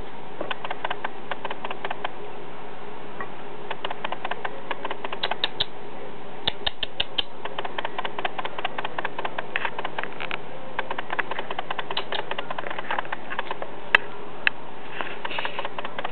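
Lop-eared pet rabbit scratching and clicking about on bedding: irregular runs of quick dry clicks, a fast run of five louder clicks about six and a half seconds in, and two sharp knocks near the end.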